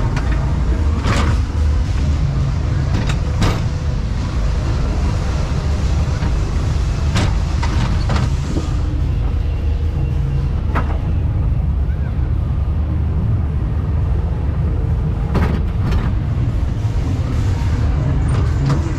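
Ghost train car rolling along its track: a steady low rumble, broken by a few sharp clacks and knocks from the rails.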